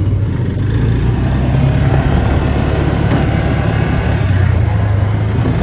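A vehicle driving at a steady speed: a constant low engine drone with an even rush of road noise.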